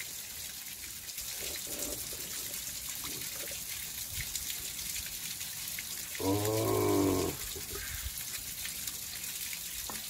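Steady trickle of running water from a small stream. A man makes a short voiced sound with falling pitch about six seconds in.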